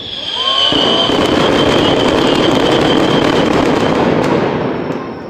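Fireworks going off in a loud, dense crackling volley with a high whistle running through it. It builds within the first half second and dies away near the end.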